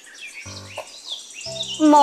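Birds chirping with a high insect-like trill behind them, and a brief low tone about half a second in; a voice begins near the end.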